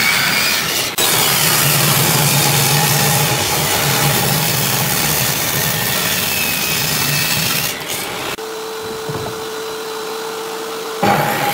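Table saw ripping a wooden board: the spinning blade cutting through the wood with a steady motor hum underneath. About eight seconds in the cutting noise drops away to a quieter, steady whine.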